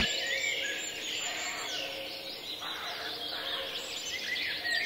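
Background birdsong ambience: many birds chirping and twittering in quick short calls, over a faint steady hum.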